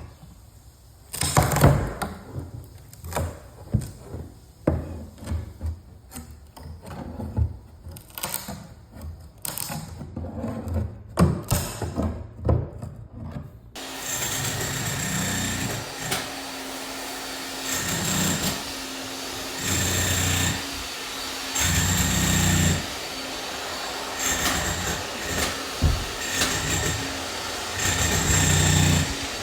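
Hand work on a house: irregular knocks, taps and scrapes of tools on wood. About halfway through this gives way to a power tool running in repeated bursts of a few seconds each, over a steady hiss.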